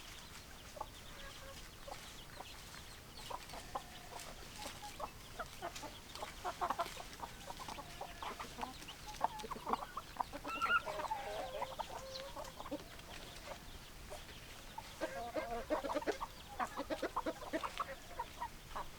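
Chickens clucking in a flock: many short, overlapping clucks, growing busier about six seconds in and again near the end, with a longer wavering cackle about eleven seconds in.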